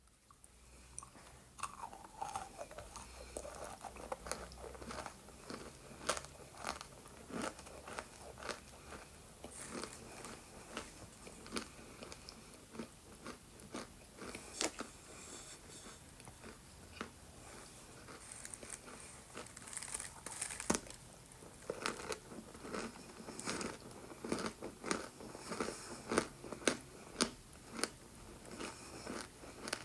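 Close-miked biting and chewing of crunchy edible chalk and clay: many sharp, irregular crunches, coming thicker and louder in the second half.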